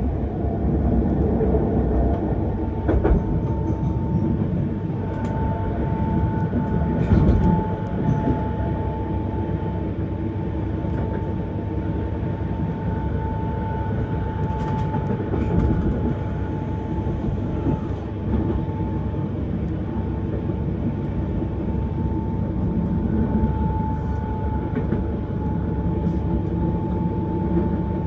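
Electric S-Bahn commuter train running at speed, heard from inside the carriage: a steady rumble of wheels on track under a constant high-pitched whine. A few knocks from the track come through, one about 3 seconds in and a louder one about 7 seconds in.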